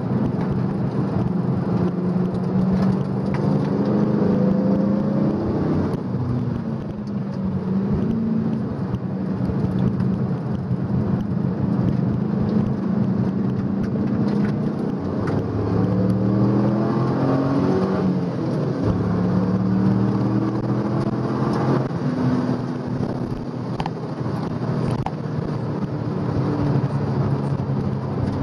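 4th-generation Camaro Z28's V8 engine driven hard, heard from inside the cabin; the revs climb and drop several times as the car accelerates and slows through the corners.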